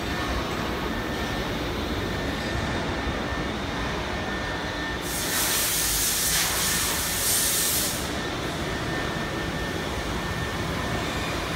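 UA-481 CNC router machining center running, a steady mechanical hum with a faint high whine from the gantry drives and spindle. From about five to eight seconds in, a louder burst of pneumatic air hiss.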